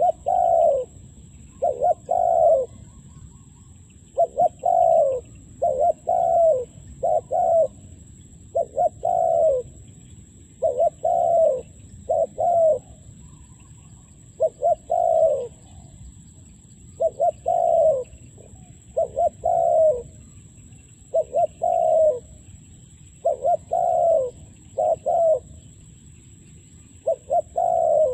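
Spotted dove cooing: short phrases of two or three low coo notes, each note dropping at its end, repeated about every two seconds.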